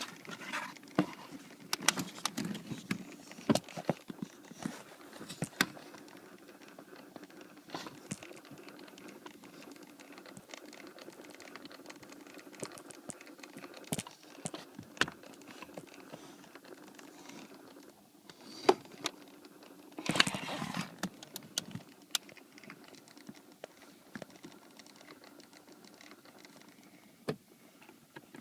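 Irregular clicking and tapping from a 2008 Toyota Sienna's HVAC system, in uneven clusters over a faint steady hum, loudest about two-thirds of the way through. The uploader takes it for an HVAC actuator problem.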